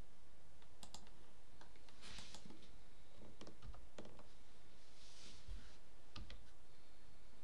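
Computer mouse and keyboard clicking at irregular intervals, with a couple of brief rustling noises in between.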